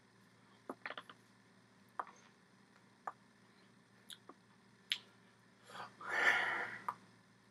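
Hands tapping, slapping and brushing against each other and the shirt while signing in American Sign Language. It is a scattered string of short, sharp taps, then about six seconds in a longer rustling swish, the loudest sound.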